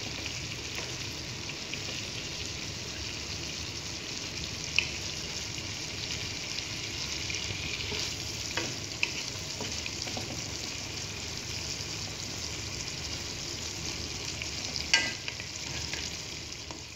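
Whole shrimp sizzling in melted butter in a wok, stirred with a wooden spatula, with a few sharp taps of the spatula against the pan, the loudest about fifteen seconds in.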